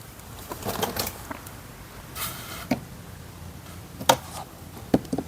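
Scattered sharp plastic clicks and handling noise from car door wiring harness connectors being handled behind a door panel, the loudest click about four seconds in.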